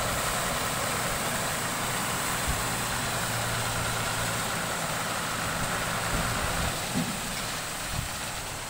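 Ashok Leyland tipper truck's diesel engine running steadily while its hydraulic ram holds the bed up and the load of gravel slides out. The steady engine hum and a higher whine ease off about seven seconds in.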